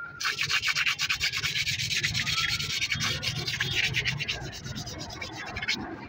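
Fast, rhythmic scratchy rubbing close to the microphone, many strokes a second, starting just after the beginning and stopping shortly before the end.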